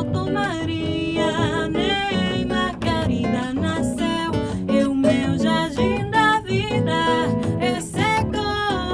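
A woman singing a slow melody with vibrato, accompanied by a plucked classical guitar and a plucked upright double bass.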